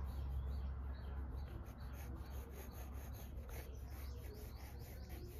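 Graphite pencil scratching across textured drawing paper in quick, short sketching strokes, several a second, over a low steady hum.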